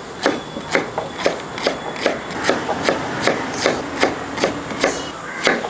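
Kitchen knife chopping pineapple into small chunks on a wooden cutting board, the blade striking the board in a steady rhythm of about three cuts a second.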